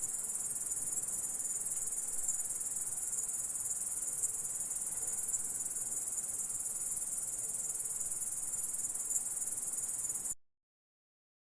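Grasshopper stridulating: a steady, continuous high-pitched buzzing trill that cuts off suddenly near the end.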